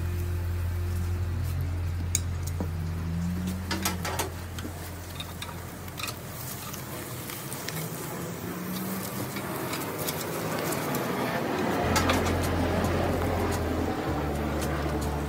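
Background music with a slow, steady bass line, over a few light metallic clinks of a spatula and tongs against a grill grate.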